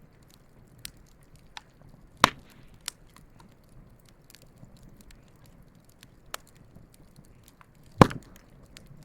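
Wood campfire burning, with scattered crackles and sharp pops over a low steady hiss; two pops, about two seconds in and near the end, are much louder than the rest.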